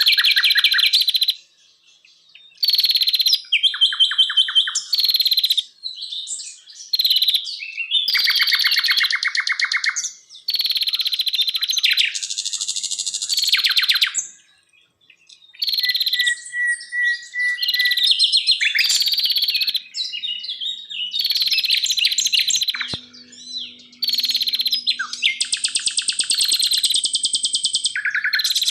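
Songbird singing a run of loud phrases of rapid chattering trills and clear whistles, each a second or two long with short pauses between them. There is a steady held whistle about halfway through.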